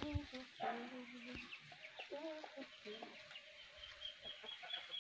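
Chickens clucking, a few short pitched calls, with a faint run of quick high chirps in the later part.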